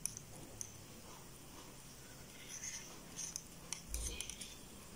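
Faint ticks and soft rustling of a crochet hook drawing yarn through as a double crochet stitch is worked.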